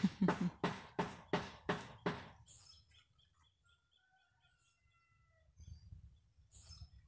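Quick crunching footsteps on dry ground, about three a second, stopping about two seconds in; then birds chirping in short whistled notes.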